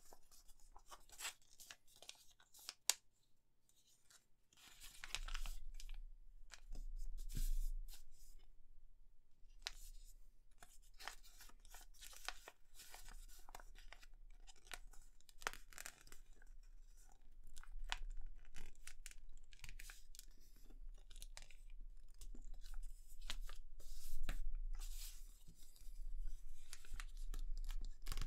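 A sheet of squared paper being folded and creased by hand into a paper airplane: crackling rustles and scrapes of fingers pressing along the folds, in irregular bursts with short pauses.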